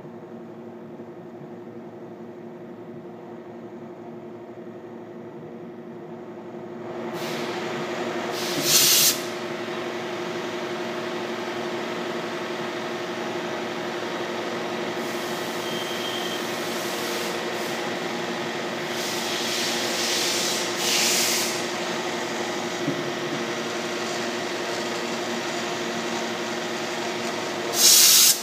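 Vertical milling machine engraving lettering into a metal plate: a steady spindle hum, joined about seven seconds in by a louder, hissy cutting noise as the cutter works the metal. There are a few brief, louder hissing surges, the loudest near the end.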